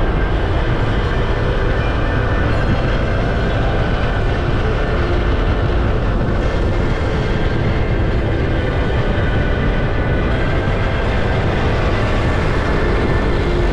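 Yamaha NMAX 155 scooter's single-cylinder engine and road noise while riding, a loud, steady rush with heavy low rumble from wind on the camera microphone.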